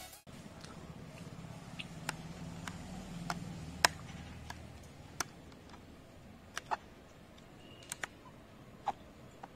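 Scattered sharp plastic clicks and taps, about a dozen at irregular times, from hands handling an Axor Apex Hunter full-face motorcycle helmet and working its top vent and visor.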